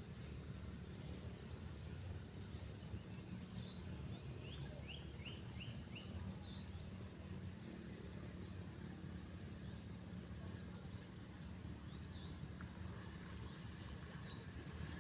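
Faint outdoor ambience: a steady low hum and hiss, with a few short high chirps from a bird, including a quick run of four about five seconds in.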